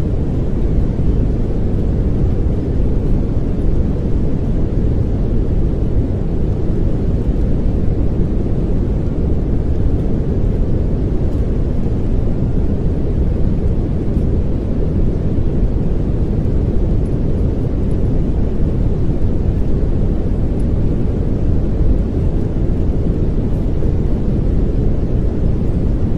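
Steady synthetic pink noise: a constant, unchanging hiss with most of its weight low down, like a soft rumble.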